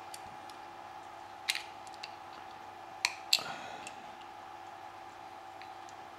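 Threaded pipe fittings being handled and tightened by hand: a few sharp light clicks, one about a second and a half in and two close together about three seconds in, over a faint steady hum.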